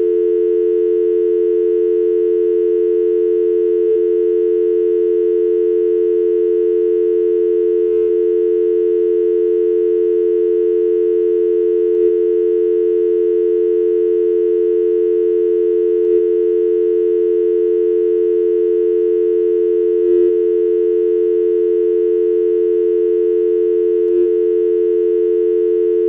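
Telephone dial tone: a continuous two-note tone of the North American kind, held steady and unbroken, with a faint click about every four seconds.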